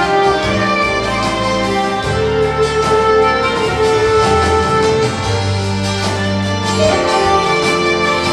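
Instrumental music: sustained melody notes over a steady bass line, the introduction of a Christian song.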